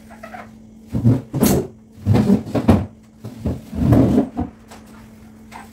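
Dining chairs being moved on a tiled floor: a run of about five loud, dull knocks and scrapes, starting about a second in and ending after about four seconds.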